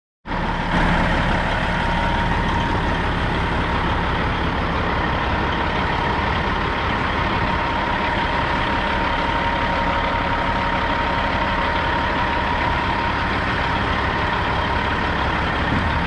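Diesel engine of a day-cab semi tractor idling steadily, with a thin steady whine running alongside the rumble.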